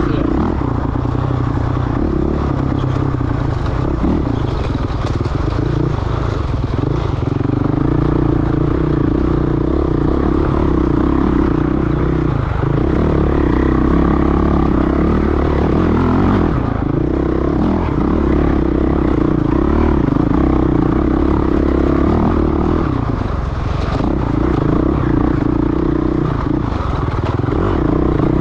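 Off-road dirt bike engine running steadily on throttle. Its note drops briefly about five times, at gear changes or where the throttle is rolled off, then picks up again.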